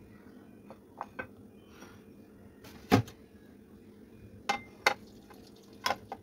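Ceramic dishes being handled and set down: a series of short knocks and clinks, some with a brief ring, the loudest about three seconds in.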